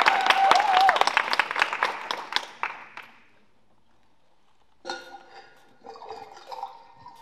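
Clapping that dies away over about three seconds, then a quiet pause with a few faint scattered tones.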